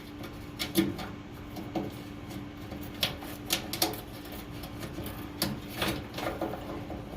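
Wires and a plastic furnace door switch being handled and fed through a sheet-metal panel: scattered light clicks and rubbing, over a steady low hum.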